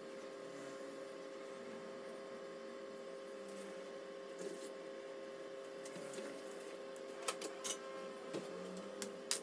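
Air fryer running as it preheats: a steady hum, with a few light taps near the end.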